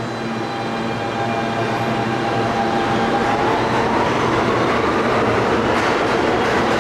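Pullman-Standard R46 subway train pulling out of the station and speeding up, growing louder. From about three seconds in, a whine climbs steadily in pitch as it gathers speed, and a few wheel clacks come near the end.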